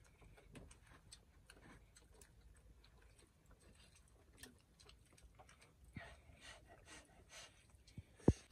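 Faint, scattered clicks and taps of people eating by hand from enamel plates, with one sharp, louder knock near the end.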